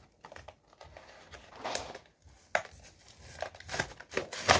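A plastic blind-bag toy packet crinkling and crackling as it is handled and pulled open by hand, with several sharper crackles, the loudest near the end.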